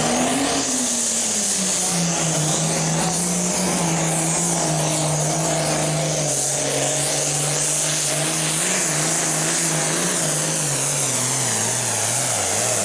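A 9,300 lb super farm class pulling tractor's turbocharged diesel engine runs flat out under load as it drags the weight sled. Its pitch drops slowly through the pull, most clearly near the end, as the engine lugs down under the sled's building resistance.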